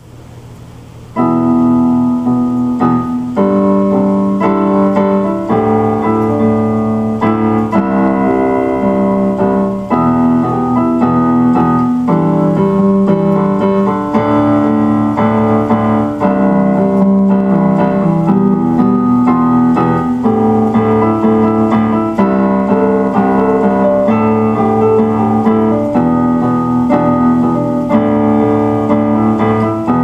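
Solo keyboard piano music: a steady flow of chords and melody notes, starting about a second in.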